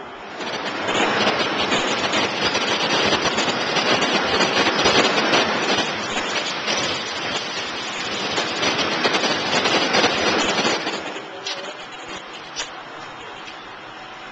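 Loud, dense rattling and road noise inside a moving city bus, its body and fittings clattering rapidly. About eleven seconds in it drops away to a quieter hiss with a few separate clicks.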